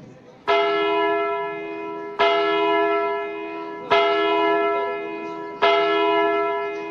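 A bell struck four times, about every second and three quarters, each stroke ringing on and fading away, as a toll in the dance's recorded soundtrack played over the stage loudspeaker.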